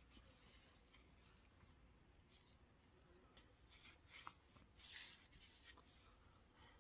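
Near silence with a few faint rustles of cloth, a tube bandana being adjusted on the head, the clearest about four and five seconds in.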